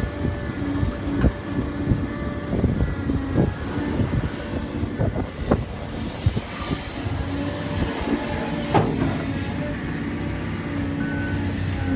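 Tracked excavator at work: its diesel engine and hydraulics run steadily with a low drone and held higher tones, while the steel bucket's teeth knock and scrape as it digs into clay soil, with sharp knocks several times.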